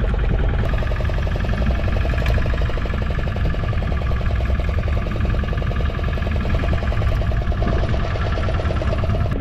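Boat engine running steadily, a fast even pulse over a strong low rumble.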